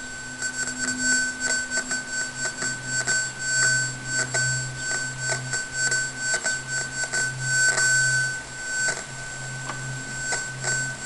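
Buzzy square-wave tone from an Arduino computing the logistic map, played out through crudely filtered PWM outputs, with irregular crackle in it. About two to three seconds in, its pitch drops an octave: a period-doubling bifurcation as the R value is slowly raised.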